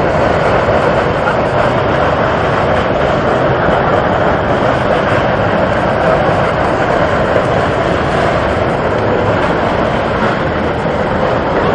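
Mud and water erupting from the ground in a tall jet, making a steady, loud rushing noise without a break.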